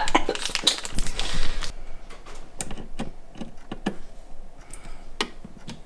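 Small clicks and taps of hands handling PC parts while fitting an M.2 SSD to a motherboard: a dense patch of rustling clicks for the first second and a half, then scattered single clicks, the sharpest about five seconds in.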